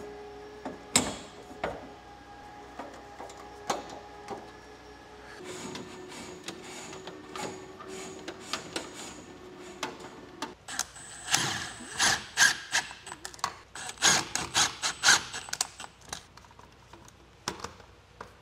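Hand work on electrical conduit and wiring: metal parts and hand tools clicking and knocking, with a busy run of rapid clicks in the second half. A faint steady hum sits underneath.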